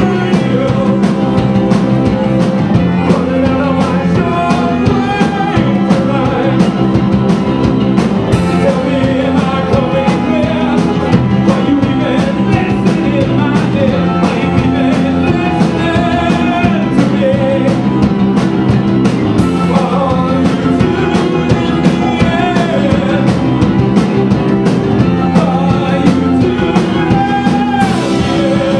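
Indie rock band playing at full volume: drums keep a steady beat under synth and Hammond organ keyboards.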